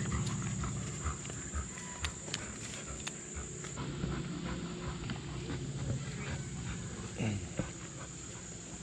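A dog making low, drawn-out vocal sounds, coming in two spells, with a few small clicks.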